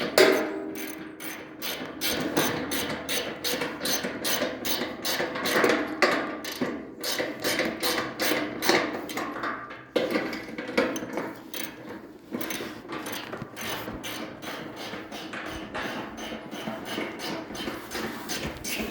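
Ratchet wrench clicking in quick, repeated strokes, tightening nuts onto the bolts that fasten the steps to the flotation.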